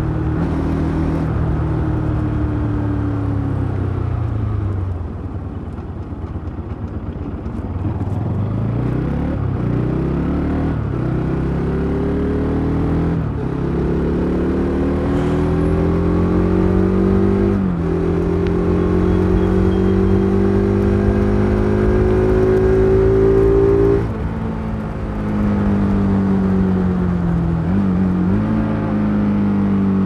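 Bajaj Pulsar RS 200's single-cylinder engine and stock exhaust heard from the rider's seat on the move. The engine note falls away as the throttle eases off, then climbs in long rising runs with a sudden drop in pitch at each upshift, falls sharply once more when the throttle shuts, and picks up again.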